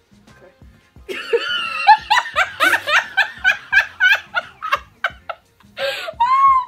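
Young woman laughing, loud and rapid, breaking out about a second in and rising into a high squeal near the end.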